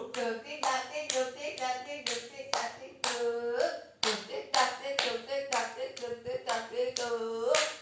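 Hands clapping a steady beat, about two to three claps a second, under a voice singing or chanting a children's song.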